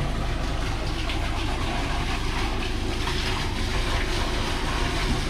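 Septic vacuum truck's engine and suction pump running steadily while pumping out a septic tank: a constant low hum under an even rushing hiss.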